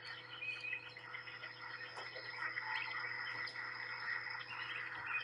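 Nature ambience soundtrack of many birds chirping at once in a dense, continuous chorus, with a faint steady hum underneath.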